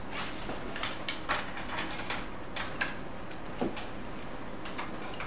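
Light, irregular clicks and taps of small plastic parts and a cable connector being handled inside an opened HP LaserJet P3005 laser printer, while its small cooling fan's cable is fitted.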